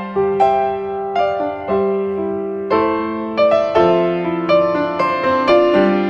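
Background piano music: a slow melody of single struck notes, about two a second, over held lower notes.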